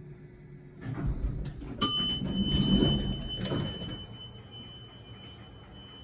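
Elevator arrival chime: a single bell-like ding just before two seconds in that rings on and fades over a few seconds, over the rumble of the elevator doors sliding open.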